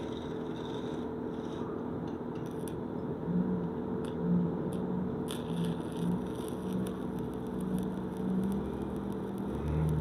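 Stick welding arc crackling and sizzling as a 7018 electrode runs a straight stringer bead, the crackle growing denser about halfway through. A steady low hum runs underneath.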